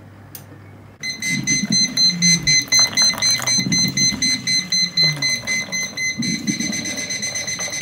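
Liquid level indicator beeping, a high rapid beeping tone that starts about a second in and signals that the hot water has reached the top of the mug. Beneath it, a one-cup hot water dispenser runs and pours water into the mug with an uneven low rumble.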